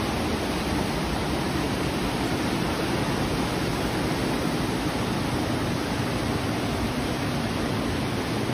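Heavy rain pouring and floodwater rushing along a flooded street, a steady, even wash of noise.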